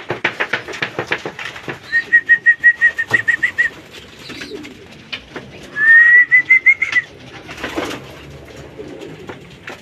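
Racing pigeons moving about in their loft: wings flapping and clattering as the birds come in, with two runs of quick, high chirps, about two seconds in and about six seconds in, the second rising slightly.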